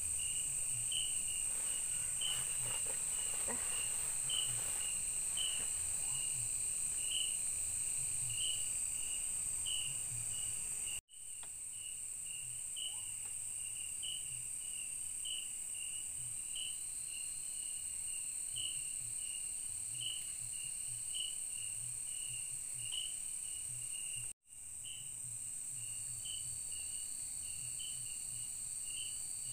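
Night-time insect chorus in forest: a steady high-pitched buzzing drone with a rhythmic chirping about twice a second. The sound cuts out abruptly for a moment twice, about 11 and 24 seconds in.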